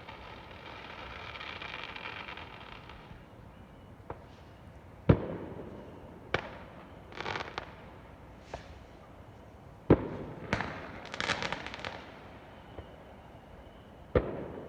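Fireworks going off: a rushing hiss for the first few seconds, then about half a dozen sharp bangs at irregular intervals, two of them followed by short bursts of crackling.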